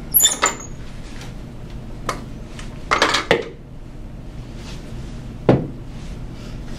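Stainless steel stand-mixer bowl clanking as it is worked free of the mixer, lifted off and set down on the table: a few separate metallic knocks, with a short cluster near the middle and a single knock near the end.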